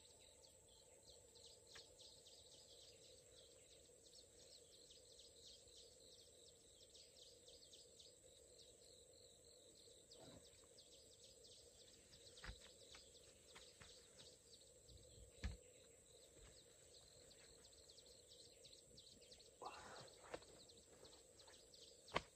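Near silence: faint outdoor ambience with a steady low hum and scattered light ticks. A few short soft knocks come about halfway through and again near the end.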